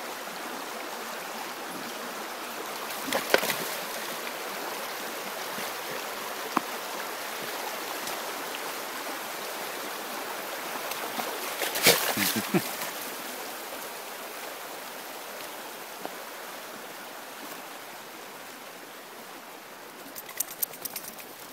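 Shallow rocky stream rushing steadily, with two brief louder splashes about three seconds in and around twelve seconds as a dog moves through the water. The rushing grows fainter over the last few seconds.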